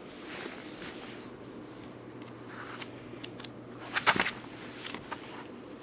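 Pages of a thick picture dictionary being flipped by hand: soft paper rustling and small clicks, with the loudest page flip about four seconds in.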